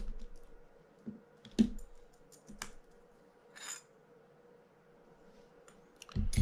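Light metal clicks and taps as a small screwdriver works the drag plate screws on a Penn International 20 reel's brass spool: a sharp click about one and a half seconds in, another a second later, and a brief scratchy sound near the four-second mark.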